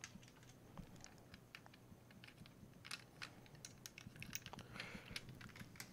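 Faint, scattered light clicks of a small folding hex key set being handled, its keys flipped in and out, coming more often in the second half.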